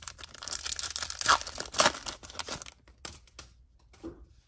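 Foil wrapper of a trading-card pack being torn open and crinkled by hand, the loudest rips about one and a half seconds in, followed by a few light crinkles.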